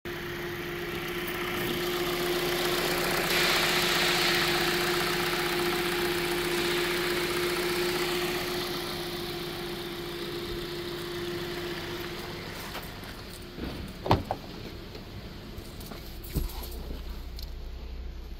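2021 Kia Cerato's 2.0-litre four-cylinder petrol engine idling steadily with the bonnet open, a steady whine over the engine noise. A couple of sharp clunks come near the end, followed by a lower, duller idle hum from inside the cabin.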